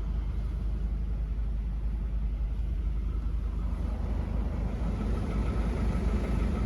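Mercedes-Benz E220d (W213) with its four-cylinder diesel running, a steady low rumble; a faint steady high whine comes in about three seconds in, and the rumble swells slightly near the end.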